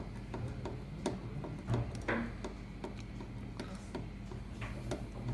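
Irregular light clicks and ticks of a puzzle cube being taken apart by hand: the center cap taken off and the center piece's screw unscrewed to reach its spring, over a steady low hum.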